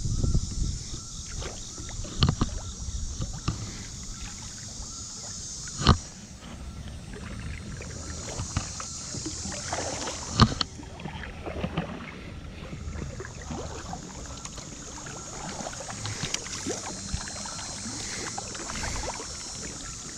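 Kayak paddling on a slow river: paddle blades dipping and splashing, water trickling off them. A few sharp knocks stand out, the loudest about six and ten and a half seconds in.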